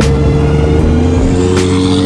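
Background music over the sound of a vehicle driving, with engine and road noise underneath.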